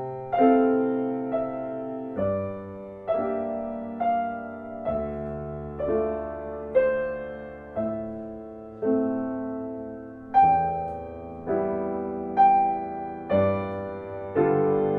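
Background music: slow solo piano, single notes and chords struck about once a second and left to ring and fade.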